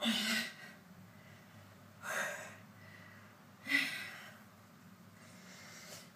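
A woman's hard breathing while doing hanging leg raises on a pull-up bar: three short, forceful exhalations of effort, about every two seconds.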